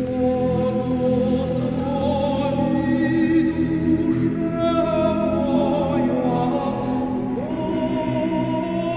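Background music of singing voices holding long, slightly wavering notes over a steady low drone, with one note sliding upward near the end.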